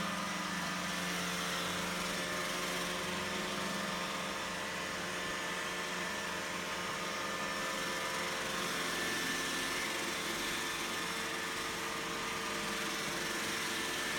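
iRobot Roomba 965 robot vacuum running, its motors and brushes giving a steady whir with a few held whining tones.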